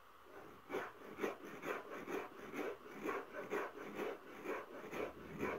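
Millet being ground by hand on a flat grinding stone, the upper hand stone rasping back and forth over the grain at about two strokes a second. The strokes start just under a second in.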